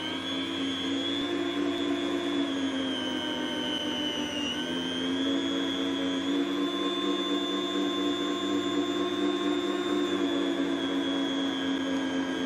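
Electric meat slicer's motor running with a steady whine as its spinning blade slices a beef roast. The pitch sags briefly about four seconds in as the blade bites through the meat and the motor takes the load.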